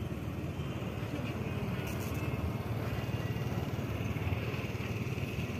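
Heavy diesel truck engine, from a Scania tank transporter tractor, idling with a steady low rumble.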